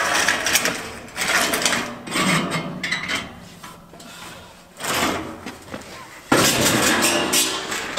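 Corrugated metal roofing sheet rattling and scraping in irregular bursts as it is shoved and slid up against the roof edge, loudest near the end.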